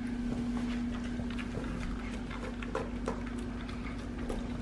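A pug eating raw ground meat from a bowl: irregular wet chewing and smacking with quick little clicks, over a steady low hum.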